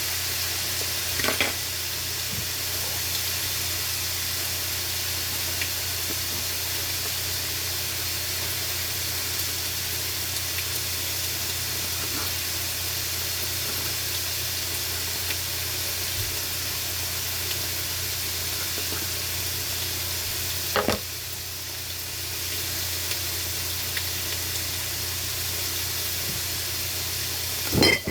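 Chicken frying in a pan on the stove, a steady sizzle. A few short knocks come through: about a second in, about three quarters through, where the sizzle briefly drops, and at the end.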